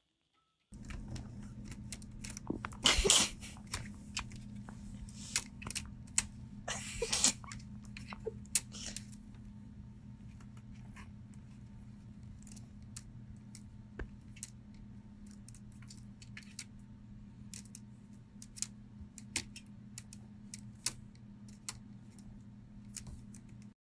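Laptop keys clicking irregularly as someone types, over a steady low hum, with a couple of louder scuffs about three and seven seconds in.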